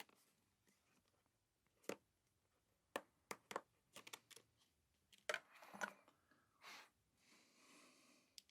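A loose mechanical keyboard switch, a Baby White switch, pressed by hand, giving a dozen faint, sharp clicks at irregular intervals; not terribly clicky. A soft rustle of handling follows near the end.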